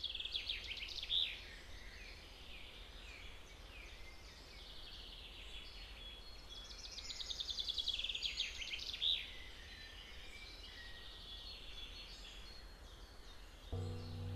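Birdsong: a bird sings loud, rapid trilled phrases twice, with softer chirps from other birds in between, over a steady low rumble. Near the end, low sustained music tones come in.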